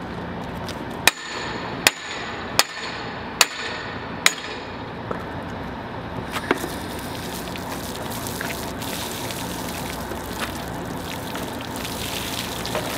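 Five sharp, ringing metal-on-metal hammer strikes, about one a second, knocking loose the steel wing (hammer) union on a test pipe. Later, water gushes and splashes out of the opened pipe joint onto concrete.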